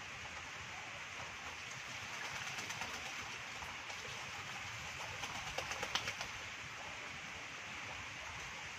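Steady rain falling on water, with a white Muscovy duck bathing in a muddy puddle, splashing and beating its wings in the water in two spells, about two seconds in and again, louder, around five to six seconds in.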